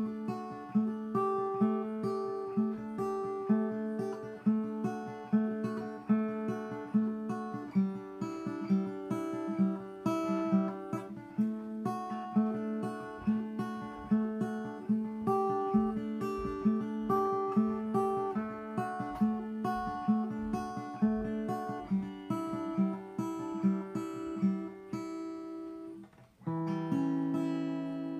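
Acoustic guitar strummed in a slow, steady rhythm of repeated chords. Near the end the strumming breaks off briefly and a new chord rings out.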